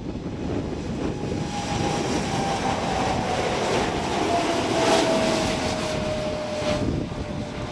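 Boeing 747-8F's four GEnx-2B turbofans at takeoff thrust as the freighter lifts off, a loud rushing noise with a single tone sliding slowly down in pitch as the jet passes. Loudest about five seconds in.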